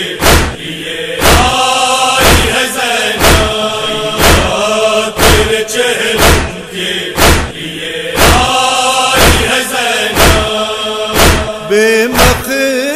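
Nauha refrain chanted by a group of mourners in unison, with sharp chest-beating strikes (matam) in a steady beat of about one a second. Near the end a solo male voice comes in with the next line.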